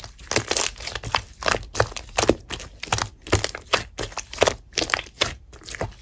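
Slime being squeezed and pressed by hand, with crackling, popping squishes about two a second.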